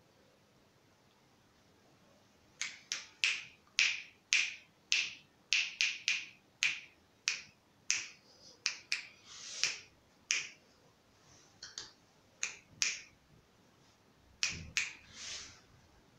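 Finger snapping, repeated about twice a second for several seconds, then a few more after a short pause, with a couple of longer, hissier snaps among them.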